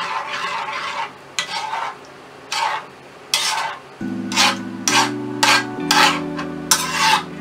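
Metal spoon stirring thick cream sauce in a metal frying pan: repeated scraping strokes against the pan, about one a second at first and quicker in the second half. Soft background music comes in about halfway through.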